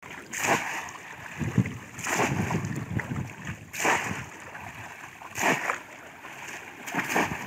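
Bamboo polo fish traps slapped down into shallow muddy water again and again: five splashes, about one every one and a half seconds, with water sloshing around the waders' legs in between.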